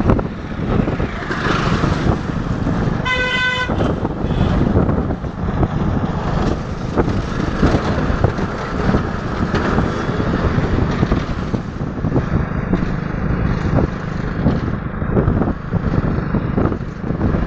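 Steady road and wind noise from a moving vehicle, with a vehicle horn honking once, briefly, about three seconds in.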